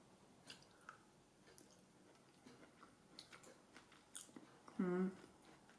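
A person quietly chewing a mouthful of oatmeal porridge with fruit and nuts: soft mouth sounds and scattered faint clicks, with a short hummed 'mm' about five seconds in.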